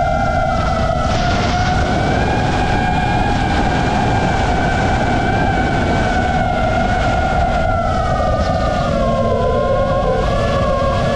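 Electric motors and propellers of an FPV drone whining steadily under heavy wind rush, the pitch wavering with the throttle and dipping slightly about nine seconds in as the drone slows.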